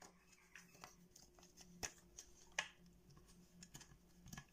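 Near silence: room tone with a faint steady hum and a few faint, sharp clicks, the clearest two about two seconds in and a little after two and a half seconds.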